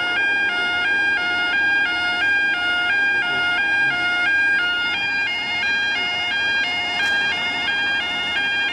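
Yodalarm YO5 level crossing alarm sounding its two-tone warble, switching between two pitches about three times a second, steady throughout: the warning that the crossing is activated.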